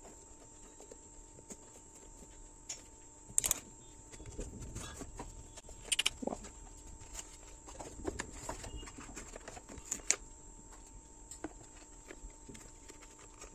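Cardboard retail packaging and a paper leaflet being handled: light rustling and scraping with a few sharp taps and clicks as the box lid and inner tray are opened.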